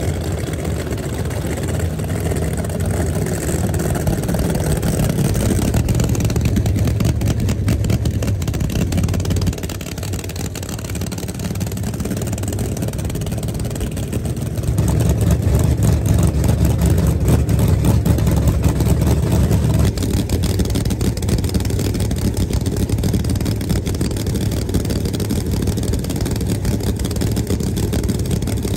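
Camaro no-prep drag car's nitrous V8 engine running at idle close by, loud and steady, growing louder about fifteen seconds in.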